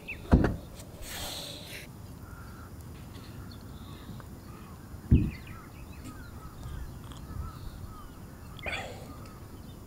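Crows cawing over a quiet open campsite, with faint smaller calls between. Two dull thumps stand out, one just after the start and one about halfway through.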